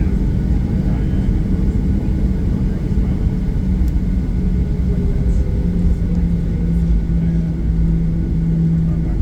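Cabin noise of a Boeing 737-800 taxiing, its CFM56-7B engines at idle: a steady low rumble under a hum that drops slightly in pitch a little past halfway.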